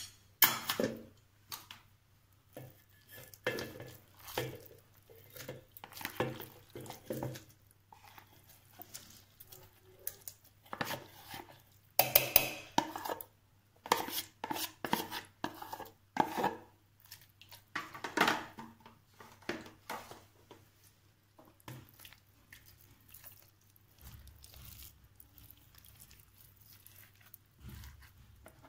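A metal spoon scraping and knocking against plastic tubs and a steel bowl as thick milk cream is scooped out, in irregular clatters. The clatters come thickest in the middle and thin out towards the end.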